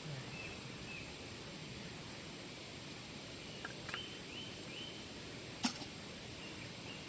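Quiet outdoor ambience with a steady hiss and a series of short, high chirping calls, several in quick succession around the middle. A single sharp crack or snap sounds a little past halfway.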